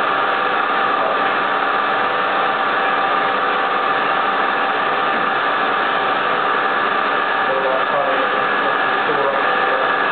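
CNC milling machine running, its spindle driving a fine end mill through a clear plastic sheet. It gives a steady hiss with several steady whining tones at an even level.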